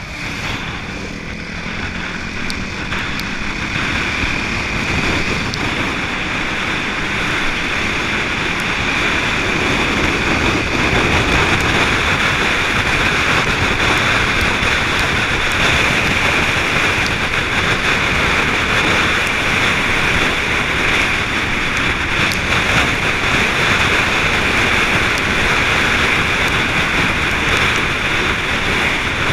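Steady rush of wind and road noise from a moving vehicle, growing louder over roughly the first ten seconds and then holding steady.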